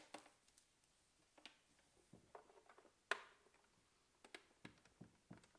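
Faint plastic clicks and taps of a power cord's plug being handled and pushed into the mains socket on the back of a plastic portable CD player, the sharpest click about three seconds in.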